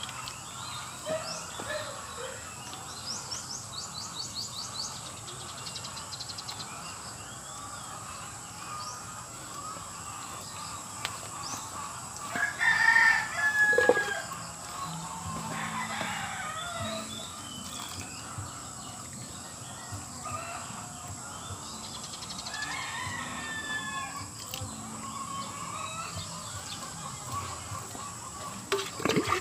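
A rooster crowing once about halfway through, the loudest sound, with other fowl calling and small birds chirping now and then.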